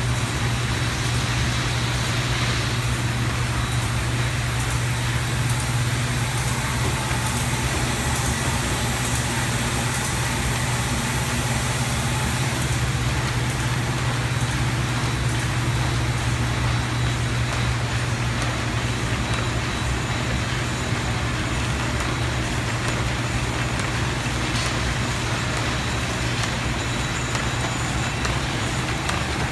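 Moll paper-folding machine line running steadily, plow-folding, buckle-folding and knife-folding sheets of paper: a constant mechanical hum with a strong low drone.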